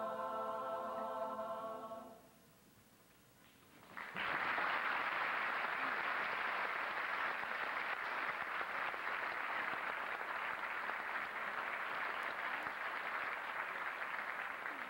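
A high school chorus holds a sustained chord that dies away about two seconds in. After a brief hush, an audience applauds, which is the loudest part, and the applause fades near the end.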